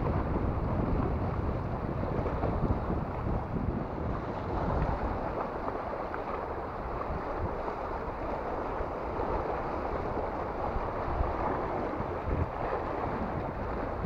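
Wind buffeting the microphone in a steady low rumble, over the wash of small sea waves breaking on shoreline rocks.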